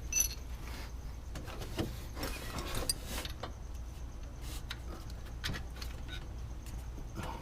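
Faint clicks and short scrapes of a wrench and metal pin working the accessory belt tensioner as the belt tension is released, over a low steady hum.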